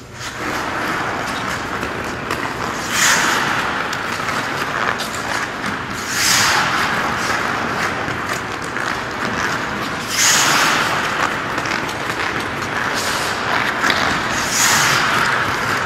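Hockey skate blades carving on rink ice, with four louder scraping bursts of about a second each as the blades dig in on tight turns.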